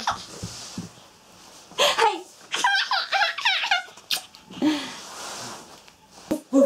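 Baby girl laughing and giggling in short bursts, loudest in a run of high, rapid giggles about two to four seconds in.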